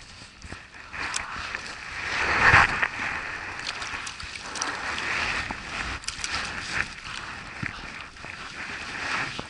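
Water splashing and sloshing at a small boat's side as a hooked perch is reeled in and thrashes at the surface, loudest about two and a half seconds in, with scattered sharp clicks.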